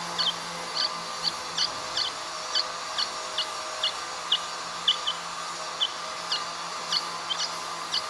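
Bulbul nestlings in the nest giving short, high, slightly falling chirps, about two a second and often in quick pairs: begging calls from the chicks. A faint steady hum runs underneath.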